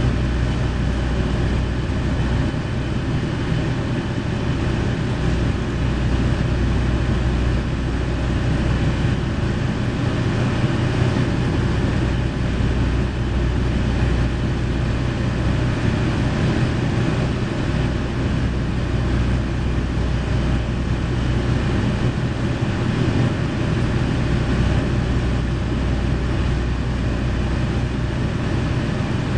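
JR Shikoku KiHa 40 series diesel railcar standing with its diesel engine idling, heard from inside the passenger cabin as a steady low hum.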